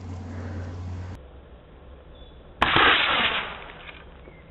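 A single sharp bang about two and a half seconds in, trailing off over about a second, from the air-rifle shooting at the drink and aerosol cans.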